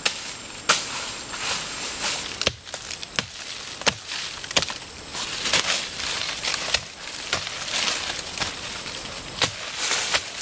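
Short-handled hoe striking into a dry, leaf-covered dirt bank: repeated sharp chops, with dry leaves and loose soil rustling and scraping between the strikes.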